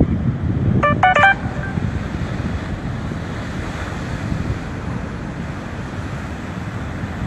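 Steady low rumble and hiss of wind buffeting the microphone. About a second in comes a quick run of short electronic beeps at a few different pitches.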